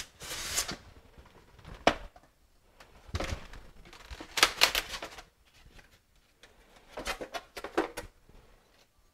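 Packaging being handled: a polystyrene foam box sliding out of its cardboard carton and its lid being pulled off, in several short bursts of scraping, rubbing and clicks with quiet gaps between.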